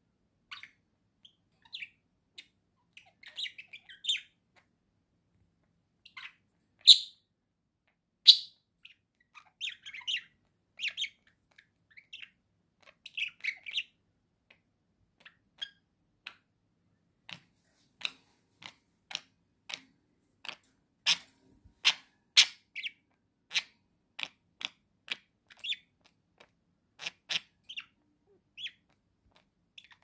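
Pet budgerigars chirping in short, sharp calls. Two louder chirps come a second and a half apart, and later there is a fast run of brief chirps at about two a second.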